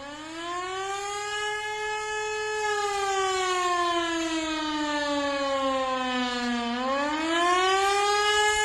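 Austria's civil defence siren winding up from low to a high wail, its pitch sagging slowly for several seconds, then climbing again about seven seconds in and holding steady. It is the classic mechanical air-raid siren sound.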